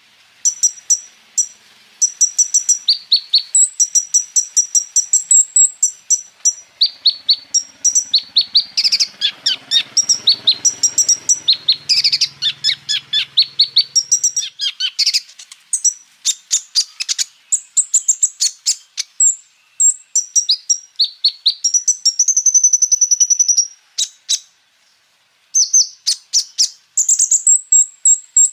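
Kolibri ninja (olive-backed sunbird) singing a fast, high-pitched song of chirps and trills in rapid runs, broken by short pauses, with a longer pause a few seconds before the end. This is its full 'roll tembak' song, which carries imitations of other birds.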